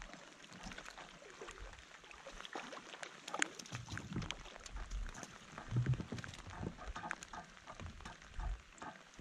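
Rain pattering on a rain jacket and the lake surface, with many irregular close drops ticking, and low bumps of movement from about four seconds in.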